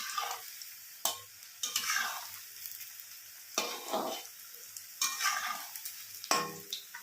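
Battered chicken pieces sizzling in hot oil in a kadai while a spatula stirs and turns them, scraping against the pan about six times.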